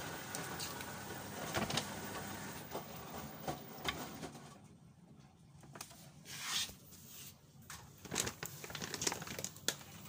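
Front-loading washing machine running steadily for the first four seconds. The level then drops, and a string of close taps, rustles and a swish follows as a detergent tub is handled.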